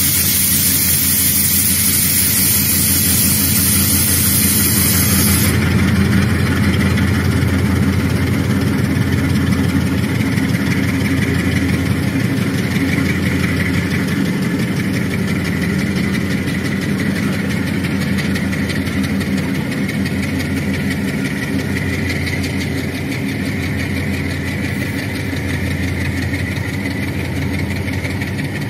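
Pair of GE U20C diesel-electric locomotives running under load at low speed as they haul a loaded freight train, a steady deep engine note with a rumble. A loud hiss over it cuts off suddenly about five seconds in.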